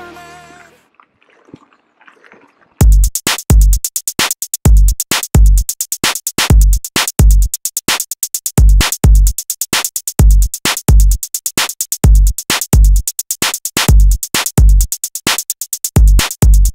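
Background music: a song fades out in the first second, and after a near-quiet gap an electronic drum-machine beat with heavy kick drums and rapid clicks starts abruptly about three seconds in.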